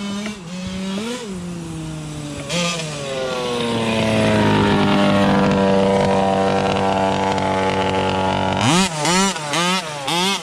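RCMAX 46cc air-cooled two-stroke petrol engine of a 1/5-scale MCD XR5 RC rally car: running at low revs with a couple of small blips, then winding up to high revs held steady for several seconds. It drops off suddenly near the end into about four quick throttle blips, each rising and falling.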